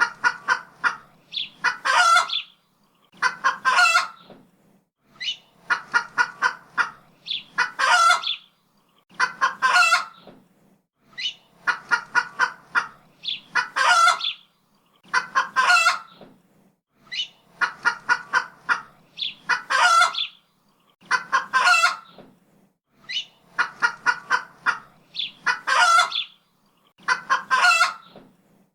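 A chicken clucking in quick runs, each run ending in a louder drawn-out squawk, the pattern repeating about every three seconds.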